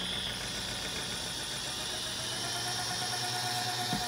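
Wind-turbine generator spun on a bench test rig, running with a steady mechanical hum and whine as its speed is being raised. A new, higher steady tone comes in about two and a half seconds in.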